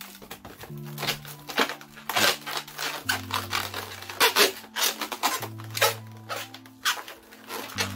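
Red latex modelling balloon squeaking and rubbing in quick, irregular bursts as it is twisted and squeezed into a flower. Behind it runs soft background music with low held notes that change every couple of seconds.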